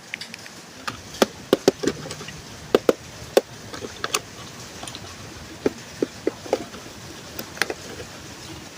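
Irregular sharp clicks and knocks of a hard plastic toy bus and its packaging being handled, over a steady background hiss.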